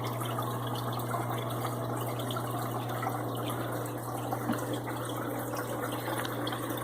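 Aquarium water running steadily, an even trickle and splash of circulating water over a constant low hum.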